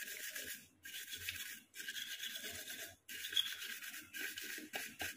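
Toothbrush bristles scrubbing a burnt, wet area of an inverter air conditioner's circuit board, cleaning off the soot left by a short circuit. The brushing comes in quick strokes, in runs of about a second with brief pauses between.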